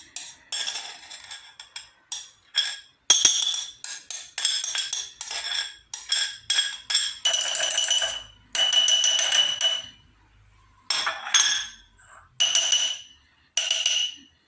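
A metal spoon clinking and scraping against a glass jar in a long run of separate strokes, each ringing briefly at a high pitch.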